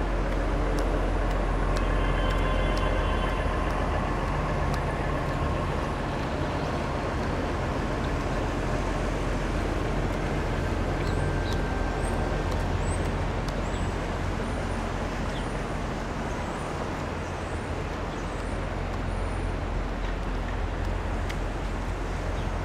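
City street traffic: a steady din of passing engines and tyres with a low rumble from buses and trucks. A few brief high chirps are heard in the second half.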